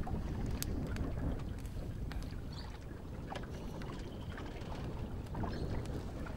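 Open-air ambience on a small boat at sea: a steady low rumble of wind and water, with scattered small clicks and knocks.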